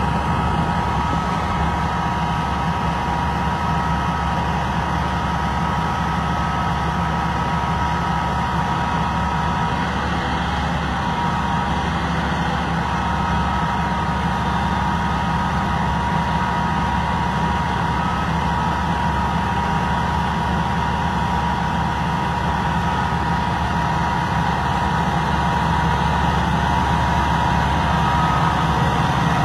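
A 1993 Seagrave aerial ladder truck's diesel engine running steadily while its hydraulics lower the aerial ladder, with a steady high whine over the engine hum.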